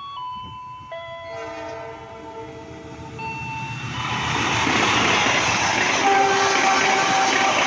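Indonesian diesel-electric locomotive horn sounding semboyan 35, the railway horn signal: a multi-tone chord held for about two seconds, starting about a second and a half in. The rumble of the train then builds and becomes loudest, and the horn sounds again about six seconds in. It is preceded by the tail of a short chime melody.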